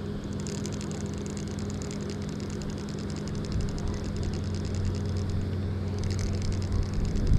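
Steady low hum of an idling car engine, with a low rumble growing louder near the end.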